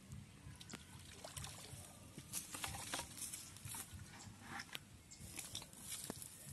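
Faint scattered crackles and rustles of a person moving and handling things in grass at the water's edge, some two dozen short irregular clicks.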